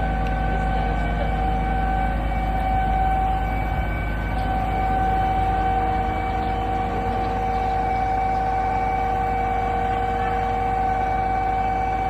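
Zoomlion 47-metre concrete pump truck running during a pump test: a steady mechanical drone with a constant whining tone, which dips briefly about four seconds in.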